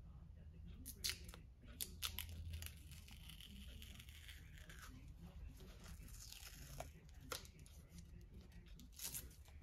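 Green masking tape pulled off its roll and torn, then wrapped onto a wire: faint sharp rips about a second and two seconds in, a longer peel in the middle, and more rips near the end.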